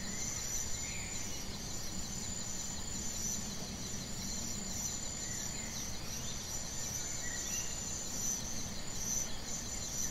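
Insects chirring in a steady, pulsing high trill, with a few short bird chirps and a low background rumble.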